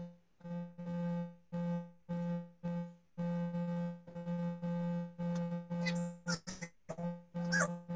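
Garbled video-call audio: a buzzing electronic tone held at one pitch, cutting on and off a few times a second, with a couple of quick squeaky sweeps near the end.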